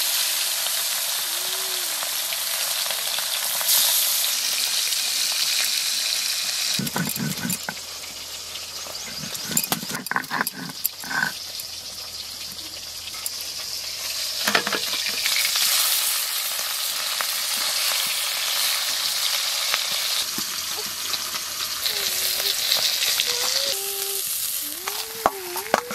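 Fish frying in oil in a steel karahi, a steady sizzle. About a third of the way in the sizzle drops back for several seconds, while a stone roller is worked over a stone grinding slab with a few rough scraping strokes.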